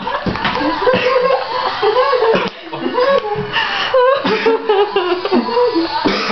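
People laughing and chuckling.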